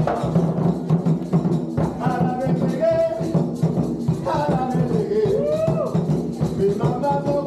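Several barrel-shaped hand drums played together by hand in a steady, driving rhythm. Voices sing and call over the drumming, with one long swooping vocal line about five to six seconds in.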